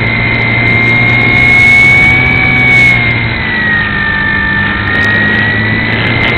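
XK A600 DHC-2 Beaver RC plane's electric motor and propeller whining steadily, heard from on board with wind rushing past. The pitch sags a little about three and a half seconds in and climbs back near the end as the motor slows and speeds up again.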